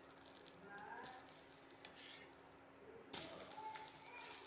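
Spatula scraping and tapping on a flat pan as an omelette is turned, with one sharp clack about three seconds in. A faint steady hum runs underneath.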